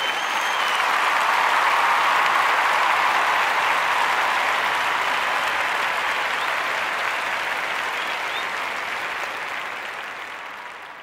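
Large crowd applauding steadily. The applause swells over the first two seconds, then slowly dies away toward the end, with a faint whistle or two on top.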